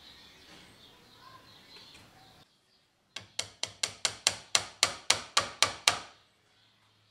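Hammer tapping a brass lanyard tube set in a wooden knife handle, peening its end over to lock it in place: about a dozen sharp metallic taps, roughly four a second, starting about three seconds in after faint background noise.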